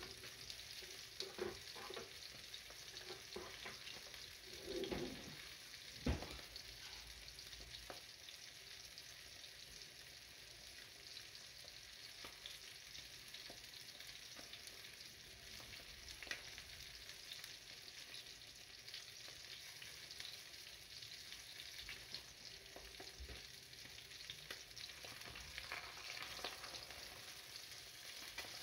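Sole frying in oil in a frying pan, a steady faint sizzle, with a few soft knocks in the first six seconds and a sharper one about six seconds in.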